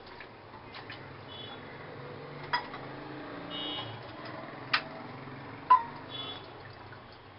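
A steel bowl clinking sharply three times, about two and a half, four and three-quarter and six seconds in, while water is poured into it from a plastic bottle. Short faint high beeps repeat in the background.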